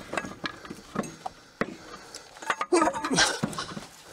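Irregular knocks, clinks and scrapes of a steel dual truck wheel being worked loose and pulled off its hub studs, with a short voice sound about three seconds in.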